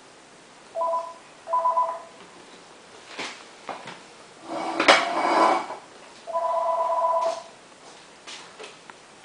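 Electronic doorbell buzzer: two short rings, then a longer one a few seconds later, each a steady two-note electronic tone. The uneven lengths fit someone at the door pressing the button. Around the middle comes a louder clatter and shuffle of movement, with a few knocks just before it.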